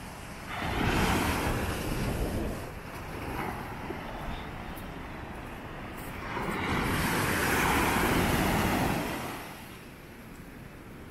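North Sea waves breaking on a sandy beach and washing up the shore, in two surges: one about half a second in and a longer one about six seconds in, easing off near the end.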